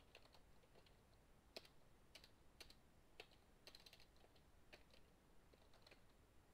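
Faint typing on a computer keyboard: about a dozen separate, irregular keystrokes as a short command is entered.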